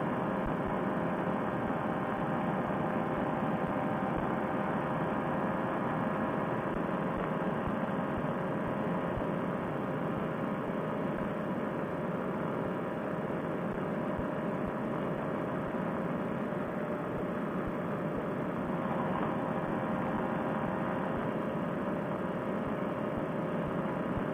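Fresh Breeze Monster paramotor engine running steadily in flight. It is a continuous, even drone that holds a constant pitch, with no change in throttle.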